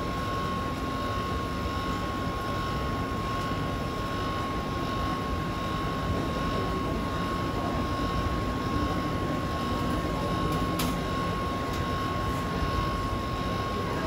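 Steady mechanical drone with a constant high-pitched whine running through it, unchanging throughout.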